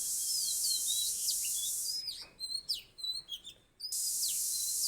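Small birds chirping and singing in short sliding notes over a steady high hiss. The hiss cuts off about two seconds in and comes back near four seconds.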